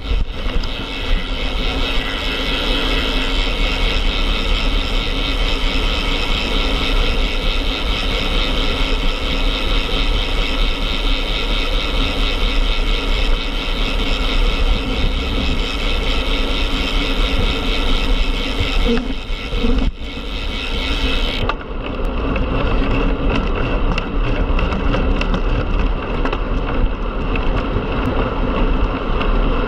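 Steady wind rushing and buffeting over a camera microphone on a road bike ridden at speed. About two-thirds of the way through, the sound turns duller, losing its hiss.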